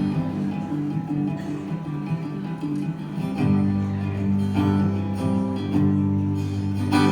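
Instrumental intro of a song: strummed acoustic guitar over steady low notes, which drop out briefly about three seconds in.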